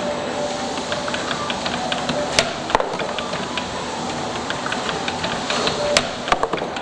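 CNC spring-forming machine running while it makes extension springs, with steady mechanical noise, rapid light ticking and a few sharp clacks.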